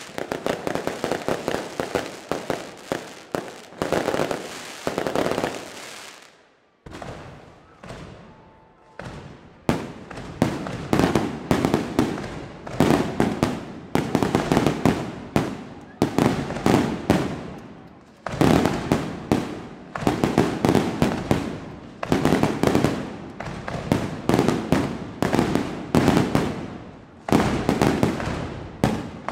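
Fireworks display: rapid, dense volleys of aerial shell bursts and crackling bangs. There is a lull of about three seconds some seven seconds in, then steady volleys again.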